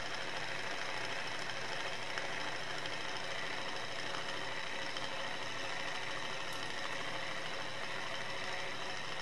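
Steady whir of the small DC electric motor inside a 1:6 scale 426 Hemi model engine, turning its pulleys and flywheel at a simulated idle speed.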